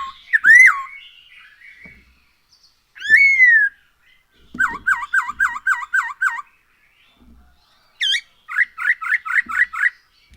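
Black-throated laughingthrush (poksay Hongkong) singing loud, clear whistled song. Two single slurred whistles come first, then a quick run of about seven repeated notes, then a sharp note and another run of about seven notes near the end.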